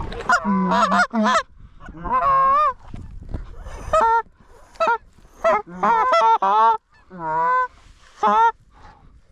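Canada goose honks: an irregular run of loud, short honks and clucks, with a few longer calls that break sharply upward in pitch.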